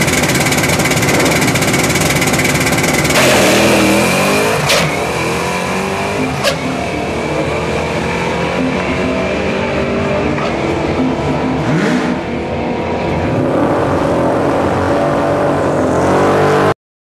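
1997 Ford Mustang SVT Cobra's 4.6-litre DOHC V8 on a drag run. It is held at high revs at the start line, launches about three seconds in, then pulls hard down the track, its note rising and falling through the gear changes. Two sharp clicks come a few seconds after the launch.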